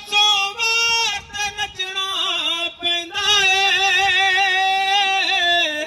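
A man singing a Punjabi Sufi folk song solo in a high voice, holding long notes that waver in pitch, with short ornamented runs between them.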